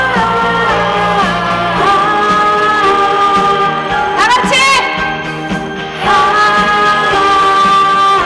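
A female vocalist singing long held notes over a live band accompaniment, with a wavering, sliding note about four seconds in.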